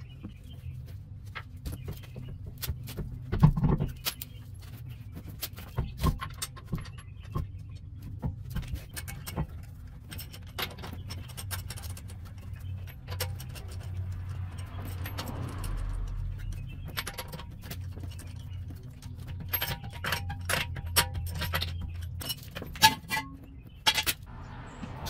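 Metal clinking and clicking of a minivan's front wheel being fitted onto the hub and its lug nuts put on, with a heavier knock about three and a half seconds in and another near the end.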